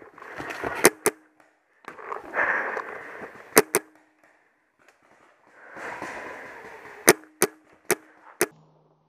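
Paintball markers firing: sharp pops, singly and in quick pairs, scattered through the moment, with patches of rushing noise between them.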